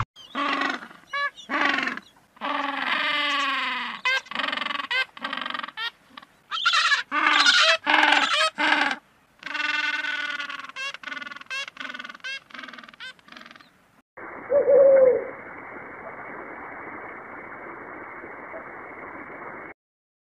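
Birds calling: runs of repeated calls, each with several overtones and a slight downward bend, in bursts with short breaks. About fourteen seconds in they give way to a steady hiss with one short call over it, and the hiss cuts off shortly before the end.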